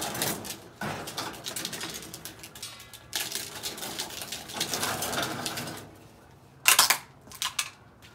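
Wheeled gas barbecue grill pushed across a concrete patio, its metal body and parts rattling and scraping in stretches. Near the end come a few sharp, loud clacks.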